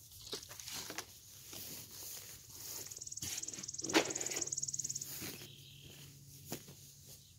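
Scattered knocks and scuffs of garden work close by, with a plastic bucket set down with a sharp thump about four seconds in. A high buzzing trill runs from about two and a half to five seconds.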